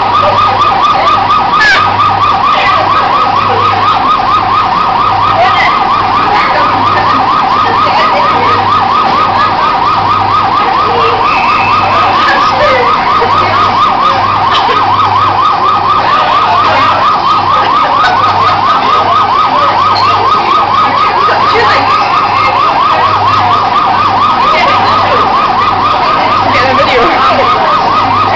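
Coin-operated police-car kiddie ride playing its electronic siren sound, a fast warble held steady throughout, with a low hum pulsing beneath it.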